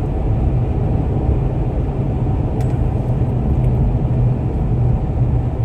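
Steady low rumble of a car heard from inside the cabin, with a faint click about two and a half seconds in.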